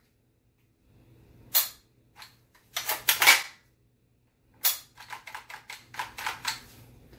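Metallic snaps and clacks of a Hi-Point 995TS carbine's action in an MBS-95 bullpup stock being worked by hand and dry-fired during a function check: a sharp snap, a louder clack of parts slamming home about three seconds in, another snap, then a run of lighter clicks.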